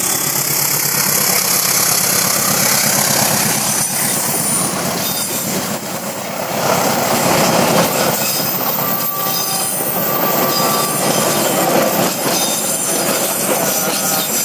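Passenger train carriages rolling past on a sharp curve, the wheels squealing in thin high tones against the rails, with scattered clacks.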